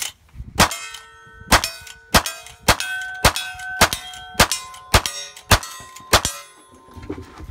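Rapid gunfire from a long gun at steel targets: about ten shots, mostly around half a second apart, each followed by the ring of the struck steel plate.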